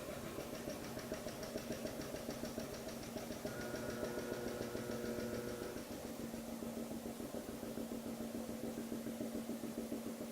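Furukawa FVS-3 vacuum packaging machine running, its vacuum pump giving a steady hum with a fast, even pulsing. A rapid fine ticking and a higher tone join in and stop about six seconds in, while the pump runs on.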